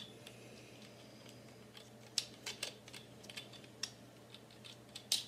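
Light metallic clicks and taps of a Henry lever-action .22 rifle's front sight being nudged along the barrel to line up its screw hole, with a few sharper clicks about two seconds in and the loudest near the end.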